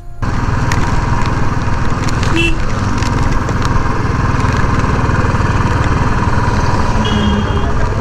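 Motorcycle engine running steadily as the bike rides on, mixed with strong wind buffeting the microphone in a gale.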